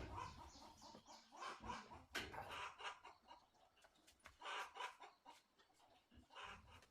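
Chickens clucking, faintly, in a handful of short separate calls.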